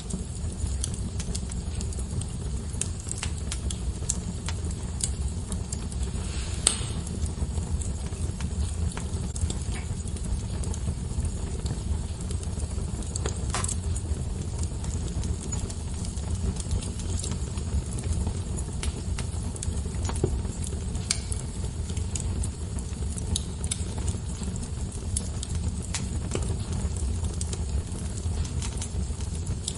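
Wood fire burning in a fireplace: a steady low rumble of flames with frequent small crackles and a few louder pops and snaps.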